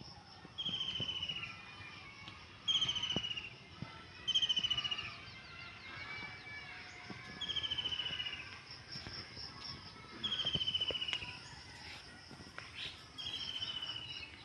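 A bird repeating a short, slightly falling trilled call six times, every two to three seconds, over a steady high chirring of insects.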